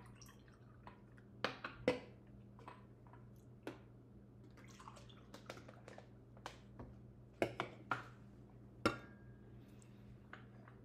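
Beer poured from aluminium cans into small tasting glasses. Several sharp clinks and knocks come as cans and glasses are set down on a stone countertop, over a steady low hum.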